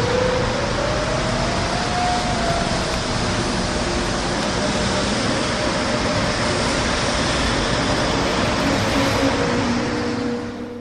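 Steady street traffic noise, fading out near the end.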